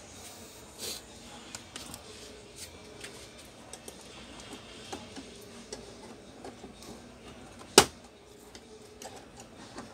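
Light clicks and ticks of a plastic pry tool being worked along the plastic bezel of an LED TV to release its clips, with one much louder sharp snap near the end.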